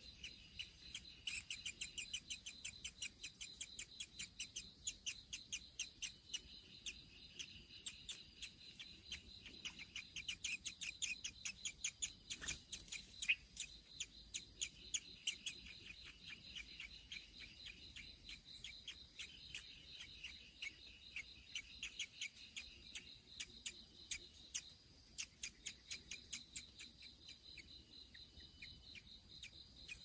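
Rapid high chirps repeated several times a second in long runs, over a steady high insect drone, with a few short gaps between the runs.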